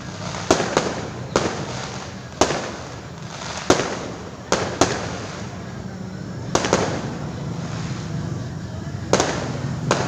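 Fireworks bursting: about a dozen sharp bangs at irregular intervals, some coming in quick pairs, each trailing off in a brief echo.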